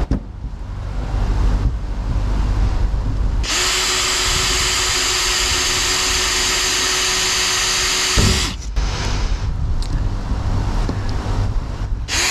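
18V cordless drill running steadily as it bores a hole up into the eave soffit. It starts about three and a half seconds in, stops about eight seconds in, and starts again just at the end.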